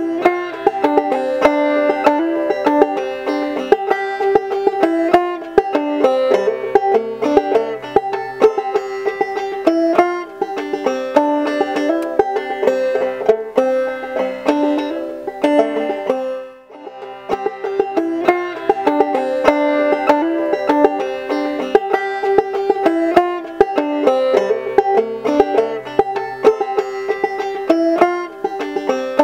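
Background music: a plucked banjo tune with many quick notes, which breaks off briefly a little past the middle and then starts again.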